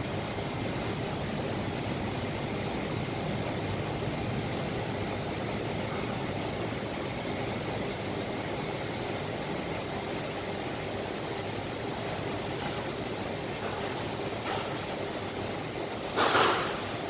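Steady machinery noise in an equipment room, an even low hum and hiss with faint steady tones over it, and one short burst of noise a little before the end.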